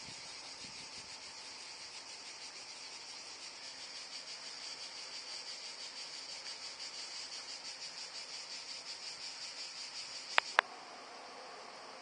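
Cicadas in a steady, pulsing chorus that grows louder through the middle. Two sharp clicks close together near the end, after which the chorus is fainter.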